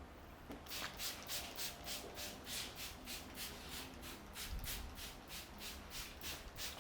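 Hands rubbing briskly back and forth in a massage, about four even strokes a second, starting just under a second in.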